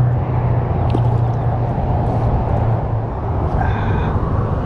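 Steady road traffic noise, strongest in the low end, with no break or change.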